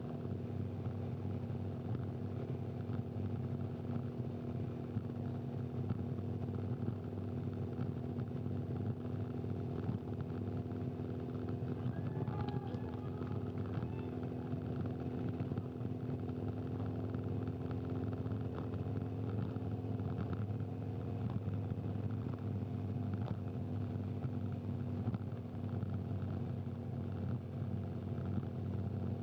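Camera motorcycle's engine running steadily at low cruising speed just ahead of a group of racing cyclists, an even drone with wind noise and no changes in pace.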